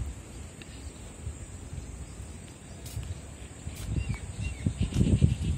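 Outdoor garden ambience: wind buffeting the microphone in low gusts, strongest about four to five seconds in, with a few faint bird chirps and a steady high insect-like drone.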